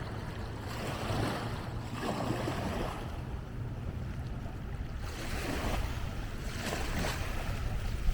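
Lake waves washing in on the shore in a couple of surges, with wind rumbling on the microphone.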